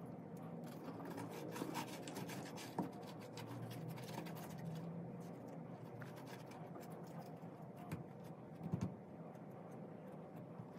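Faint handling noise: light scratching and rubbing with scattered small clicks, a few sharper clicks about three seconds in and again near the end.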